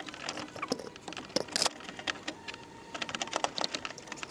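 Irregular light clicks and taps from hands handling parts in an engine bay, with one sharper click about a second and a half in.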